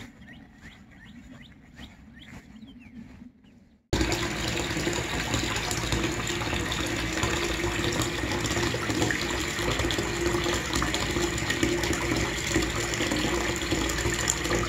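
Faint bird calls over a low rumble, then, about four seconds in, a sudden cut to tap water pouring steadily into a bathtub and splashing into the standing water as the tub fills.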